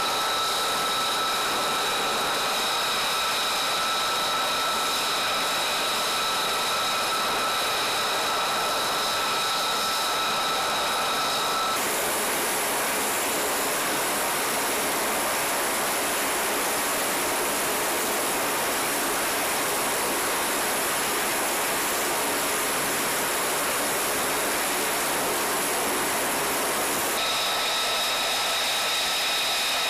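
Steady whine of an F-35A's running F135 jet engine, holding fixed tones over a rushing noise. About twelve seconds in it gives way to a denser, steady rushing roar with one high whine inside a C-130's cargo hold. The jet whine returns near the end.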